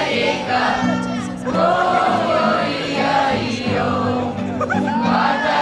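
Several voices singing together over instrumental accompaniment that holds steady chords.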